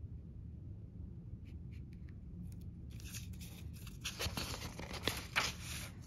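Paper pages of a printed instruction booklet being turned by hand: a few light ticks, then about three seconds of rustling as a page is flipped over.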